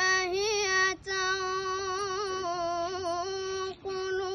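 A boy's voice chanting Qur'anic recitation (tilawah), holding long, ornamented melodic notes that waver up and down. The line breaks off briefly about a second in and again near the end.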